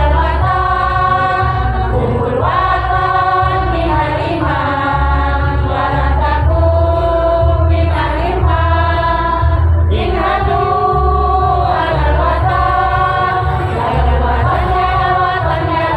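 Women's choir singing together, mostly in long held notes that change pitch every second or two, over a strong low bass rumble.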